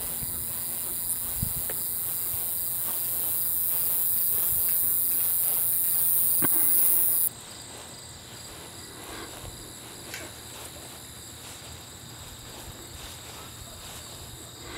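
Outdoor insect chorus of crickets and similar insects chirring. A loud, high-pitched insect buzz swells and then stops abruptly about halfway through, leaving fainter steady insect chirring.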